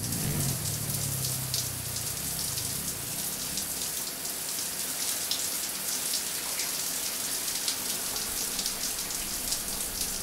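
Shower running: a steady hiss of water spraying down onto a man's back and a tiled wall.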